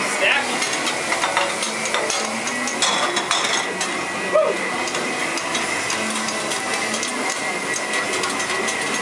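Food sizzling on a large round flat-top griddle, with repeated clicks and scrapes of long metal cooking utensils striking and pushing food across the iron surface.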